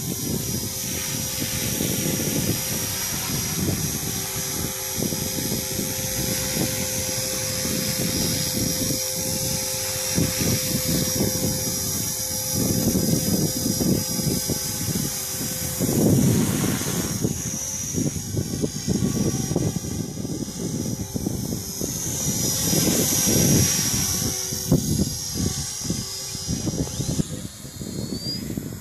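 Radio-controlled model airplane's engine and propeller droning as it flies overhead, growing louder as it passes close, about halfway through and again a few seconds later.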